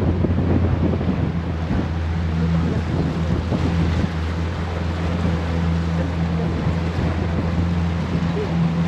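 Small tour boat's engine running steadily, a low drone, with wind on the microphone and water noise around the hull.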